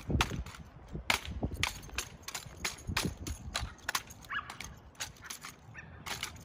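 Sharp, irregular knocks and slaps of exhibition rifle drill, about three a second: boot heels striking the hard court and hands slapping and catching a drill rifle.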